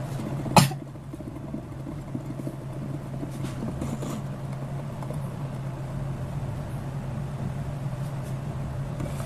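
Thick semolina upma bubbling and spluttering under the glass lid of an electric multi-cooker kettle, over a steady low hum. A single sharp knock about half a second in.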